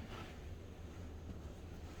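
Quiet background: a faint steady low hum with no distinct event.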